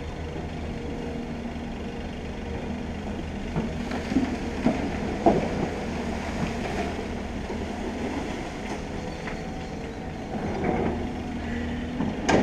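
Excavator at work across the riverbed: a steady diesel engine drone with a low hum. A few sharp knocks and clanks come around the middle and again near the end.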